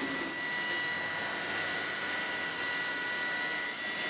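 Steady machinery noise in a cheese factory: an even hiss with a constant high-pitched whine.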